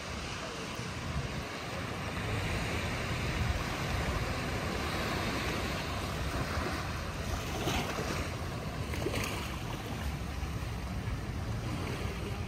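Surf washing onto a beach with a steady hiss, and wind buffeting the microphone with a low rumble.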